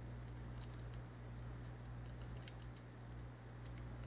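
Faint, irregular small clicks from a gold-filled pocket watch case being handled in gloved fingers while its cover is fitted back on, over a steady low electrical hum.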